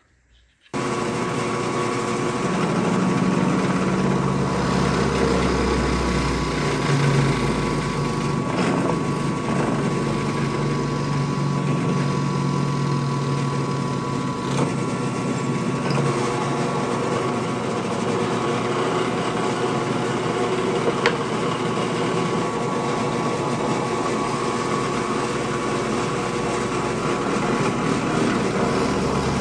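Woodworking power tool motor running steadily with a constant hum and whine. It cuts in abruptly just under a second in, after near silence.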